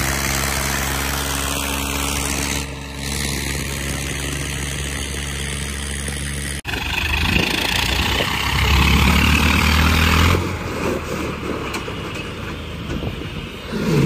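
Farm tractor diesel engines running on the road: a steady, even engine drone, then after a sudden cut about six and a half seconds in, a rougher engine sound that grows louder for a couple of seconds and drops away again near ten seconds as a tractor passes.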